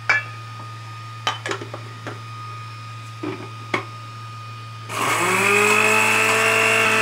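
A few clicks and knocks as a small dry-grinder jar is fitted onto an electric blender base, then about five seconds in the blender motor starts, rising quickly in pitch to a steady high whine as it grinds dry coriander seeds coarsely.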